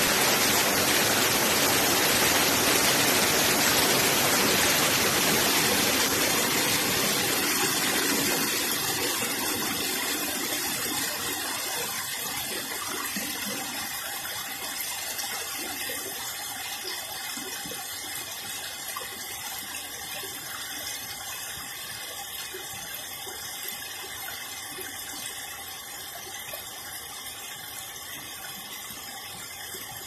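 Stream water rushing over a low rock ledge in a small cascade. The steady sound grows gradually quieter from about a quarter of the way in.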